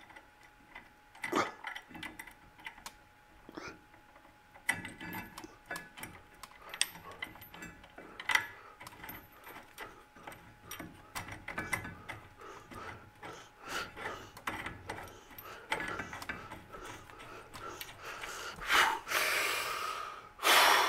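Irregular small metal clicks, taps and clinks as a disc brake caliper, its mounting bolt and washers are handled and fitted against the caliper bracket by hand. A louder rushing scrape comes near the end.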